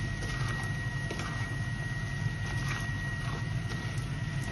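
Chicken in butter sauce cooking in a pan while being stirred, with a few faint clinks of the utensil against the pan over a steady kitchen hum and a thin high whine.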